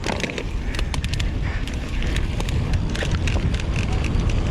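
Mountain bike riding down a trail at speed: wind buffeting the microphone, with many sharp clicks and knocks from the bike and tyres over rough ground. It grows louder about two seconds in.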